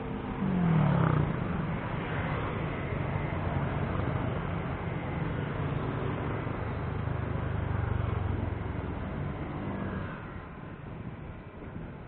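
Road traffic heard from a bicycle: motor vehicle engines running close by, with one vehicle passing near about half a second in, its engine note falling in pitch as it goes by, then a steady traffic rumble.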